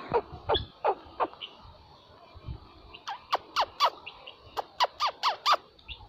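Helmeted guineafowl calling: short sharp calls that each fall steeply in pitch, a few in the first second, then a quick run of about nine from about three seconds in.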